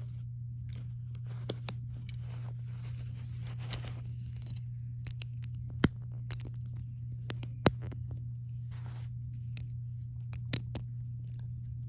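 Small plastic Lego pieces being handled and pressed together: scattered sharp clicks, the loudest about six and nearly eight seconds in, with light rustling in the first few seconds. A steady low hum runs underneath.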